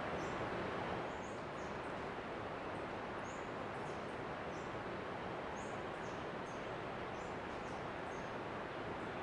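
Small birds giving short, high, thin chirps about once a second over a steady rushing background noise.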